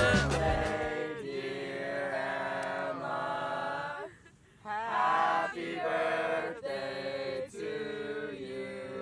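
Music: the song's beat drops out about a second in, leaving chanted, choir-like voices that hold notes in several short phrases with brief gaps between them.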